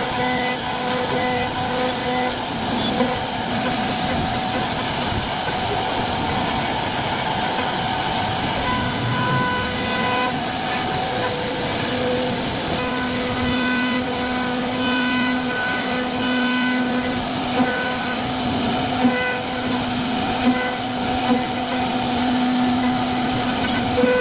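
CNC wood-carving router running: a steady whining hum from the machine that breaks off and returns every second or two, over a constant hiss of cutting.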